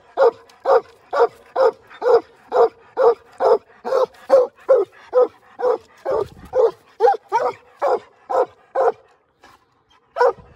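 Young coonhounds, a black and tan and a redbone, barking treed at a raccoon up the tree: a steady chop of barks about two a second that breaks off for about a second near the end.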